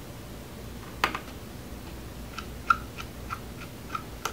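Small Phillips screwdriver backing the motherboard screws out of an HP Chromebook G4 laptop: one sharp click about a second in, then light, even ticks about three a second as the driver turns.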